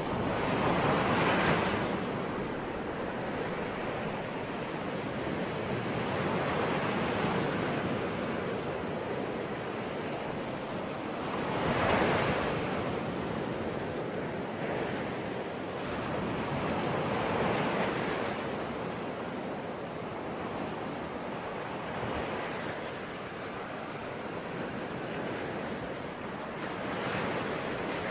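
Sea waves breaking and washing ashore, each swell rising and falling every five seconds or so, with a steady rush of surf and some wind between them.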